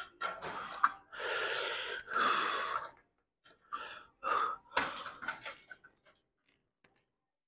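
A man breathing hard through a set on a weight machine: long, forceful exhales in the first few seconds, then shorter, quicker gasping breaths, with a couple of sharp clacks among them.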